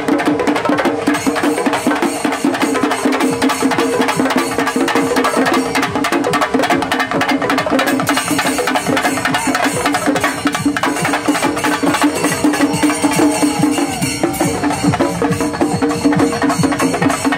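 Traditional Kerala temple-festival music: fast, dense drumming over a steady held tone.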